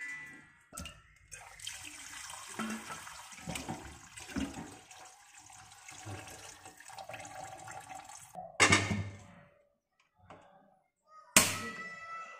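Water from a hose pouring into a stainless steel pot of raw pork ribs in a sink, rinsing the meat. Then two loud knocks, one past the middle and one near the end.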